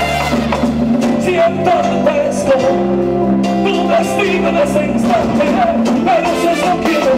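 Live Latin dance band playing: a male singer sings into a microphone over steady bass notes and driving drums and hand percussion.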